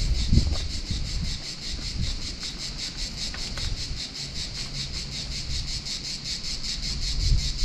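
Cicadas singing, a steady high buzz in rapid, even pulses of about seven a second, over a low rumble on the microphone.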